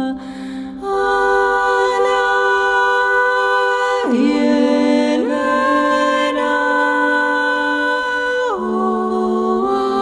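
Slow, calm relaxation music of long sustained notes that glide to new pitches every few seconds, with a short quieter dip just before the first second.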